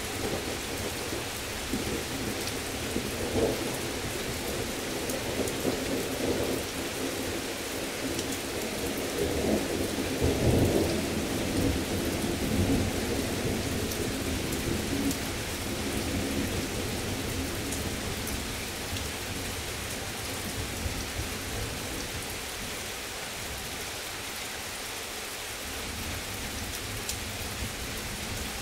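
Heavy rain falling steadily through a long roll of thunder. The thunder rumbles in from the start, is loudest about ten seconds in, and dies away over the next ten seconds or so, leaving the rain alone.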